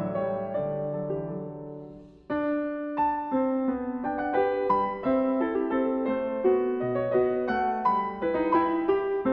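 Background piano music. One passage fades out and another begins suddenly a little over two seconds in.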